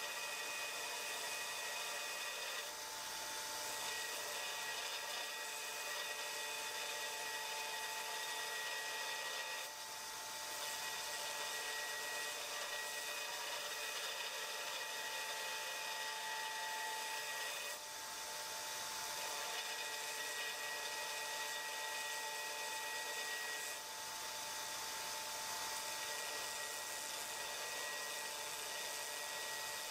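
Belt grinder grinding a forged 1084 carbon-steel tool held against the belt at the contact wheel: a steady grinding hiss with a steady whine, dipping briefly about three times as the pressure on the work changes.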